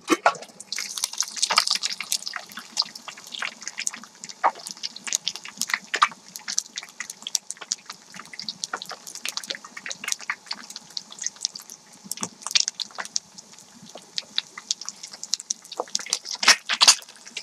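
A raw egg deep-frying in hot oil in a frying pan: the oil sizzles with dense crackles and pops, getting louder about a second in, with a burst of louder popping near the end.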